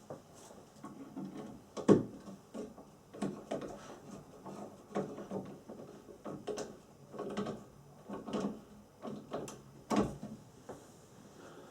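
Screws being driven by hand with a screwdriver into a kit chair's wooden parts: irregular creaks, scrapes and clicks, with two louder knocks, one about two seconds in and one near the end.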